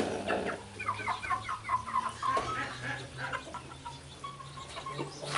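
Seven-week-old chickens clucking, with a quick run of short, high calls about a second in, then scattered softer clucks.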